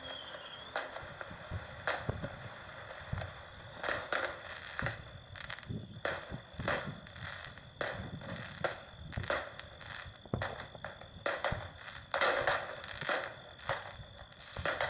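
Fireworks going off in a string of irregular pops and cracks, with wind rushing across the microphone.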